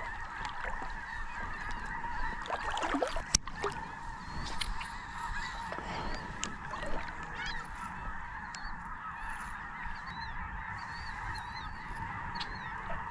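A steady, dense chorus of distant bird calls, with small high chirps near the end and one sharp click about three and a half seconds in.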